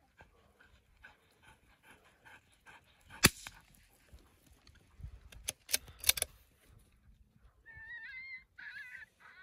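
A single sharp crack about three seconds in, a few lighter clicks around six seconds, then high, wavering whines from a dog in two short runs near the end.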